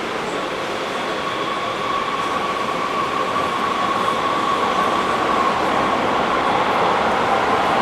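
Subway train running through a metro station, a steady whine over dense rumbling noise, growing gradually louder.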